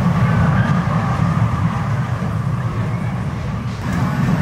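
Gerstlauer junior roller coaster train rolling along its steel track: a steady low rumble that dips briefly near the end, then rises again.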